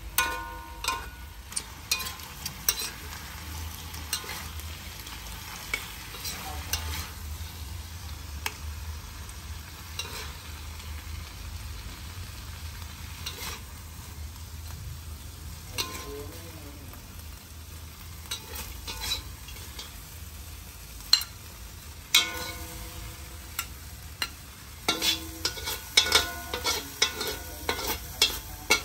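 Frog meat and greens sizzling in a black wok while a metal spatula stirs and scrapes against the pan. Sharp clanks, some of them ringing, come in clusters near the start and through the last few seconds as the food is scooped out onto a plate.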